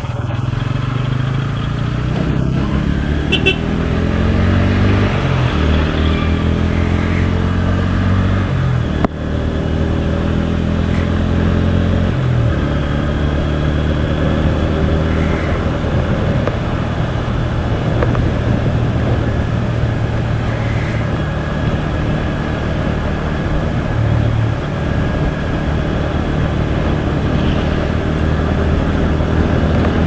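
Bajaj Pulsar N160's single-cylinder engine pulling through the gears, its revs rising for several seconds, with brief breaks at gear changes about nine and twelve seconds in, then holding a steady cruise.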